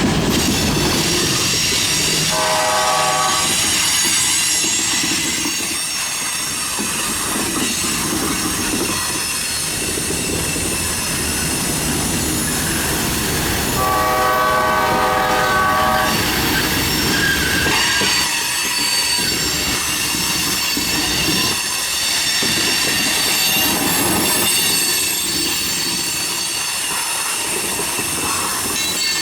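Freight train rolling past, steel wheels squealing with steady high tones throughout. A locomotive horn sounds briefly about two and a half seconds in, again for about two seconds near the middle, and more faintly near the end. The horn is a five-chime Nathan K5LA.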